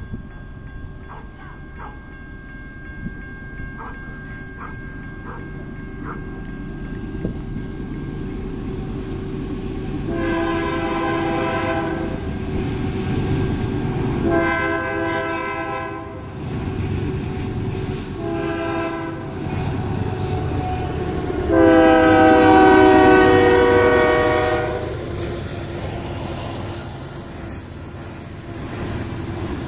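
Union Pacific GE AC44CWCTE diesel locomotive's air horn sounding the grade-crossing signal, long, long, short, long, over the growing engine rumble of the approaching loaded coal train; the last long blast is the loudest. Near the end the loaded coal hoppers roll past with a steady rumble on the rails.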